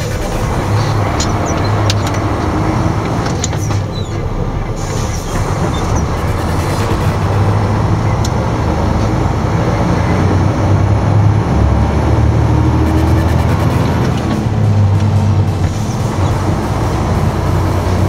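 Truck diesel engine running steadily while driving, a low drone with road and tyre noise.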